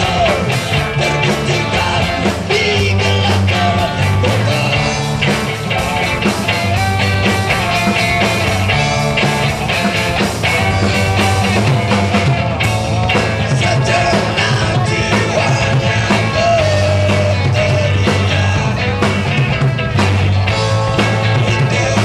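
Loud rock music from a band: drums keeping a steady beat under a stepping bass line, with a wavering melody line above.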